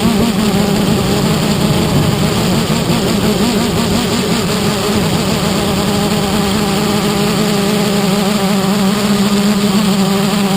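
330-size quadcopter's electric motors and propellers in flight, picked up by the GoPro mounted on the craft: a steady loud buzz whose pitch wavers slightly as the throttle shifts, mixed with rushing noise.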